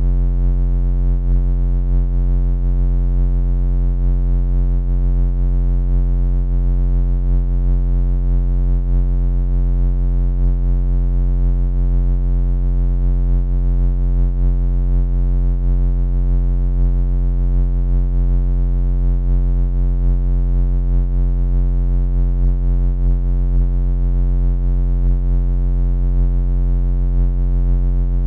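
Synthesized laser sound effect: a steady, low electronic buzz that holds one pitch without any change.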